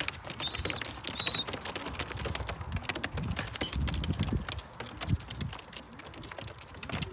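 Racing pigeons pecking feed off a hard path, a quick, irregular run of small beak taps and clicks. A couple of short, high chirps come about a second in.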